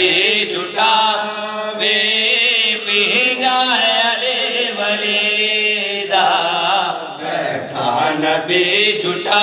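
A man's voice chanting a devotional recitation into a microphone, in long, drawn-out melodic phrases that glide up and down in pitch.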